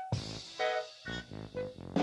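Background music: short phrases of held, pitched notes with brief gaps between them.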